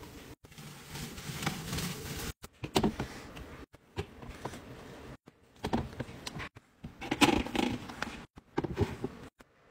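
Objects being handled: a run of knocks, taps and clatters with rustling and scraping between them, typical of containers and packaging being set down and arranged while a fridge is restocked. The sound cuts off abruptly to silence several times and starts again.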